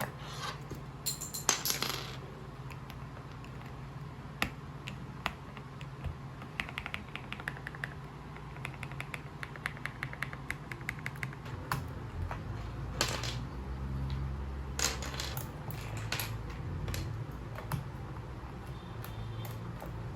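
Scattered small plastic clicks and clatter from keycaps and a mechanical keyboard being handled. There are louder rattling scrapes near the start and twice about two thirds of the way through, over a steady low hum.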